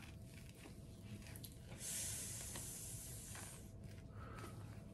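Adhesive surgical dressing tape being peeled slowly off skin: a soft tearing hiss lasting about two seconds, starting about two seconds in, with a few faint crackles around it.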